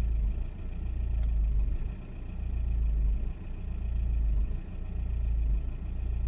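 2001 VW Passat 1.9 TDI four-cylinder turbodiesel running with a misfire, its low rumble swelling and dipping unevenly.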